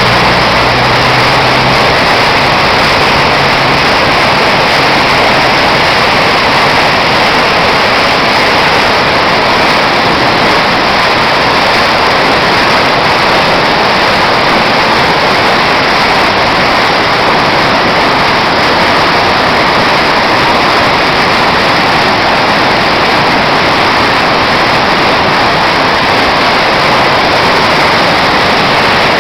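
Storm: a loud, steady, unbroken rush of heavy rain and wind noise. A low hum shows under it for the first few seconds.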